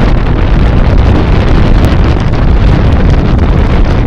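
Wind buffeting the microphone of a bicycle-mounted Cycliq camera while riding at speed: a loud, steady rumbling rush.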